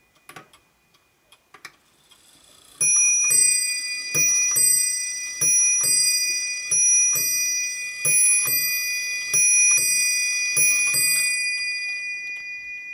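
PLATO German mechanical mantel clock, its movement ticking faintly, then striking seven o'clock on its gongs. Each hour count is a two-note ding-dong pair, seven pairs about a second and a quarter apart, and the gong tones ring on and fade at the end.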